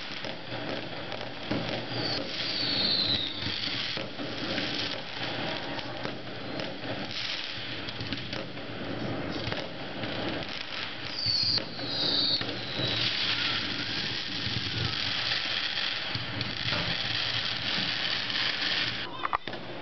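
Fireworks going off continuously: dense crackling and popping from many bursting shells and crackle effects, with short falling whistles about two seconds in and again about eleven seconds in.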